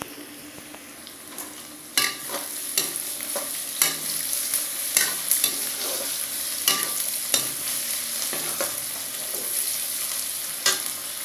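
Sliced onions sizzling in oil in a metal kadhai while a metal ladle stirs them, scraping and clinking against the pan. The stirring picks up about two seconds in, with a clink every half second or so over the steady sizzle.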